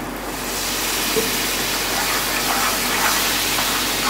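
Water poured into a hot pan of tomato-purée gravy, hissing and sizzling as it turns to steam. The hiss swells about half a second in and then holds steady.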